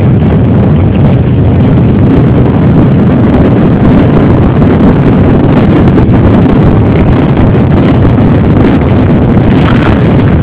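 Engines of a group of off-road trail motorcycles running close by, a loud, steady rumble with wind buffeting the microphone.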